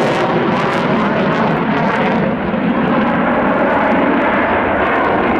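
Loud, steady jet noise from a Boeing F/A-18 Super Hornet's twin General Electric F414 turbofan engines as the fighter flies its display.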